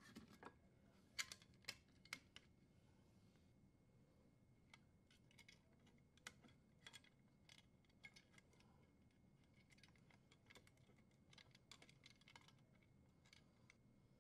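Near silence with faint, scattered small clicks and taps of hands handling a metal dishwasher junction box and power cable while threading the strain relief nut; a few sharper clicks come about a second in.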